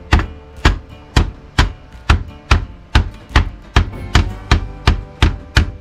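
A handheld lemon squeezer used as a mallet, beating raw conch meat on a plastic cutting board: a steady run of sharp blows, about two a second, to tenderize the meat and finish killing it.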